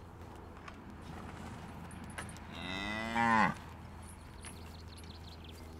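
A cow moos once, about halfway through: a single call of about a second that grows louder and drops in pitch as it ends.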